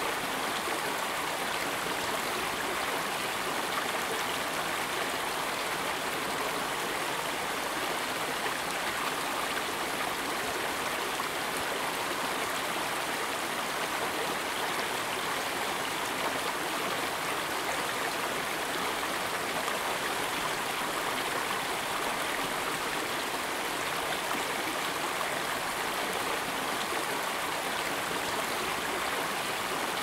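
River water rushing over rocks and small waterfalls, a steady, even rush that does not change.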